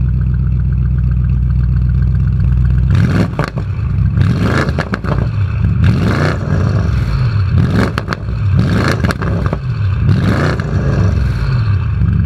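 Mansory-tuned Audi RS7's 4.0-litre twin-turbo V8 idling steadily, then revved in place in about five quick blips, with sharp pops as the revs drop.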